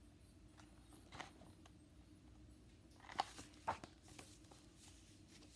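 A hardcover picture book being moved and closed: soft rustles and a few light taps, the two loudest about three seconds in, over a faint steady room hum.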